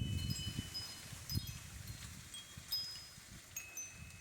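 Wind chime ringing softly in the breeze: scattered short, clear high notes at several different pitches, over a faint low wind rumble.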